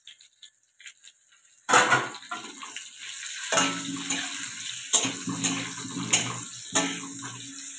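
A spatula scraping and knocking against a metal kadai as fried potato chunks are stirred in hot, sizzling oil. It starts suddenly about two seconds in, with a few sharper knocks later on.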